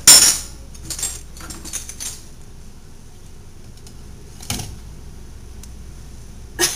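Metal silverware clinking and clattering: a loud clatter right at the start, then a few lighter clinks, one more about four and a half seconds in.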